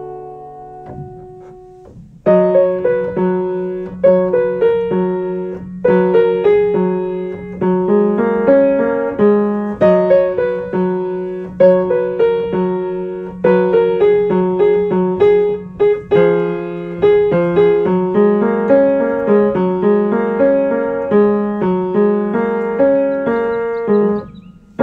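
Solo piano music: a soft chord dies away, then about two seconds in a louder passage starts, with repeated chords over a held low note, each stroke fading before the next.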